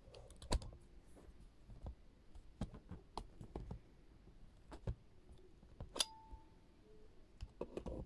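Irregular small clicks and taps as a zoom lens is handled and turned on a Canon AV-1 35mm SLR body, the metal breech-lock mounting ring clicking against the camera's lens mount. The loudest is one sharp click with a short ring about six seconds in.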